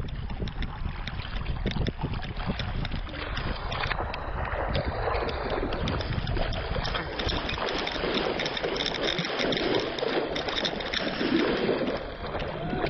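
Lake water splashing and sloshing close to the microphone as people wade and swim through it, with wind buffeting the microphone, strongest in the first few seconds.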